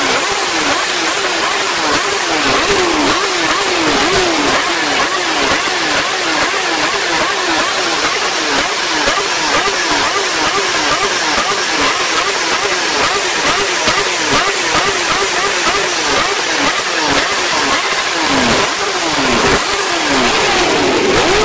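Honda sport motorcycle with an aftermarket slip-on exhaust being revved in quick repeated throttle blips, about one and a half a second, each falling back, with a bigger rev near the end.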